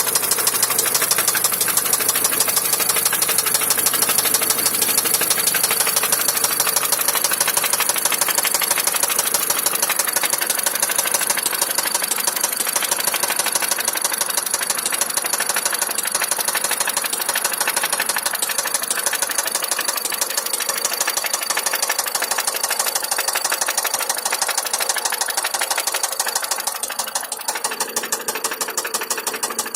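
Vehicle engine running steadily with a rapid, even knocking that keeps time with the engine: an engine knock. It gets a little quieter in the last few seconds.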